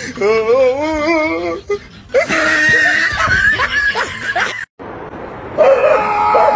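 A wavering, laugh-like voice, then after a sudden cut, light music with a bouncing, repeating melody.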